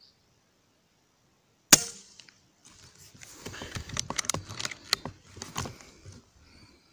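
A P15 compressed-air rifle fires a single shot, one sharp crack about two seconds in. After it come a few seconds of clicking and rustling handling noise, with several sharp ticks.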